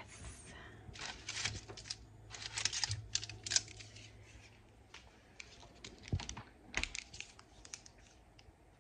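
Plastic snack-bar wrapper crinkling and tearing open in irregular clusters of sharp crackles, with a faint low hum under the first half.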